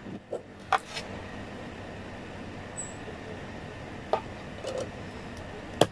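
A few short, sharp plastic clicks and knocks as a CD is worked into the slot of a wall-mounted CD player that resists it, over a steady background hum.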